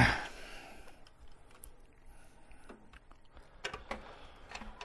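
A few faint, scattered clicks and taps of handling noise around a plastic printer carriage, following a brief louder knock at the start.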